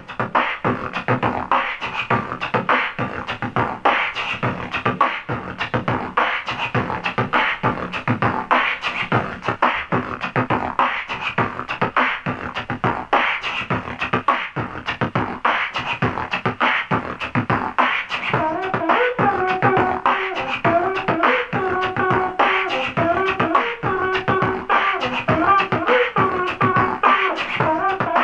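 Vocal beatboxing into a handheld microphone: a fast, steady rhythm of mouth-made kick, snare and hi-hat sounds, layered through a Boss loop station. About eighteen seconds in, a pitched vocal line with held notes joins the beat.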